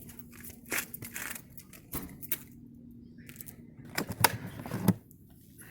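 Handling and cleaning noises on car upholstery: irregular clicks and knocks with some rubbing, the loudest knocks about four to five seconds in.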